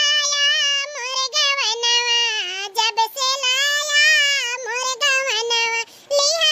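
A high-pitched cartoon character's voice, pitched up like a chipmunk and talking in a sing-song way, with a short pause about six seconds in.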